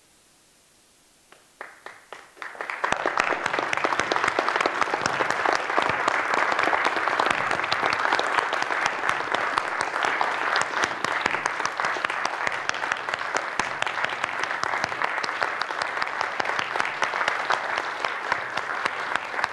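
Audience applause: a hush, then a few scattered claps about a second and a half in, swelling within a second into full, steady clapping from a large crowd.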